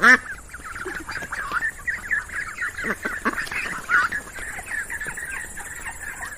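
Ducks quacking: many short, overlapping calls in quick succession, with a loud quack right at the start.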